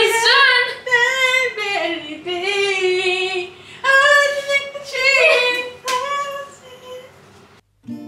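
Women singing loudly in long, sliding notes, in a few phrases with short gaps; the singing cuts off abruptly near the end.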